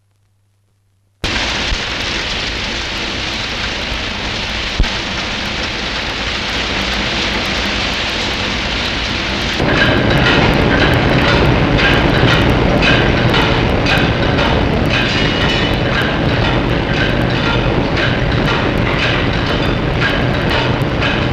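Concrete brick-making machinery running: a steady, noisy mechanical din that starts after a second of silence and turns louder about ten seconds in, with a dense rattling clatter of rapid knocks.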